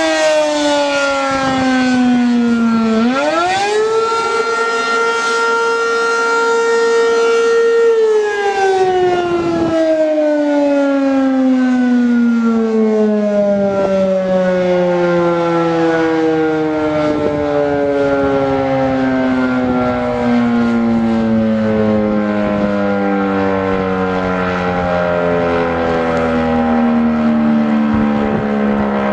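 ACA P-15 480-volt outdoor warning siren sounding the attack signal as its horn rotates. Its tone falls, swoops up about three seconds in, holds a high steady pitch for about four seconds, then slides slowly down over the last twenty seconds.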